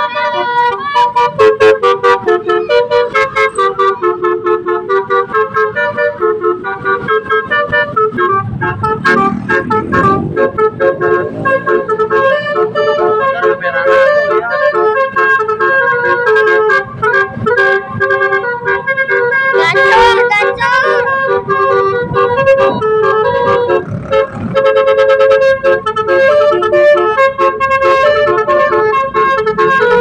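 Telolet musical horn on a modified Suzuki Carry van playing a tune: a long run of held, stepping horn notes.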